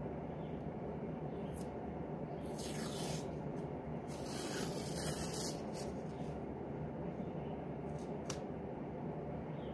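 Adhesive tape being pulled off its roll and torn: two short rasping strips, one about two and a half seconds in and a longer one near the middle, with a few light clicks, over a steady low hum.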